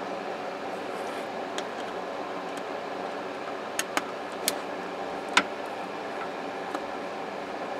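Small screwdriver working the screws on a plastic cordless-telephone base: a handful of short, sharp clicks and taps, the loudest a little past the middle, over a steady background hum.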